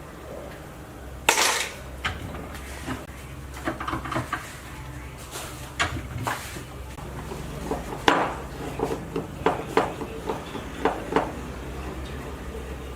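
Metal tools and parts clinking and knocking against each other on a workbench, in scattered irregular strikes, over a steady low hum.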